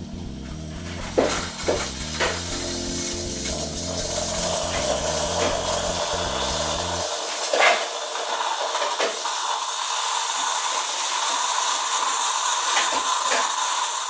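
Bosch Tassimo pod coffee maker brewing: its pump hisses and splutters as hot liquid pours into the mug, with a few clicks in the first couple of seconds. A steady hiss follows as the machine blows steam through at the end of the cycle.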